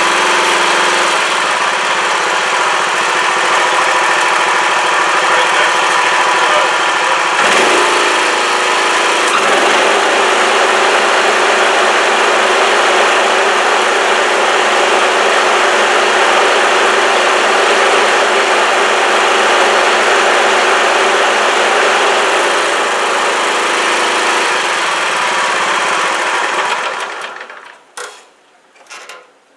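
Bolens ST120 Hydro lawn tractor's engine and mower deck running steadily on test after a broken deck pulley was repaired, with a change in tone about eight seconds in and the sound dying away near the end. It runs without the earlier strange noise and without much vibration, which the owner takes as a successful repair.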